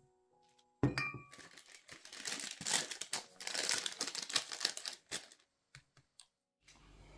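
A glass carafe set down with a short clink, then a sheet of paper crinkling for several seconds as a gloved hand presses it down over cheese curds in a strainer. A couple of light taps near the end as a glass of water is placed on top as a weight.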